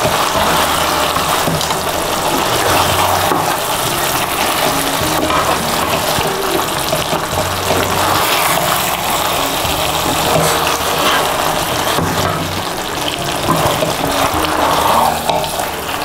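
Chicken Manchurian gravy bubbling and sizzling in the pan as the just-added cornflour slurry thickens it, over background music with a steady bass line.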